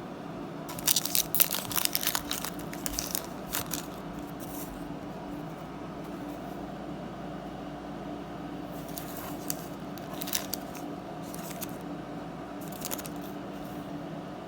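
Trading card packaging being torn open and crinkled: a burst of tearing and rustling in the first few seconds, then a few short crinkles later, over a steady low hum.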